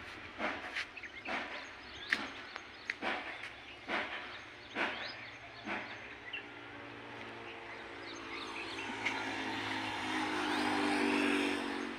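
A motorcycle engine drawing closer, getting louder over the last few seconds and loudest near the end. Before it, irregular sharp knocks and clicks.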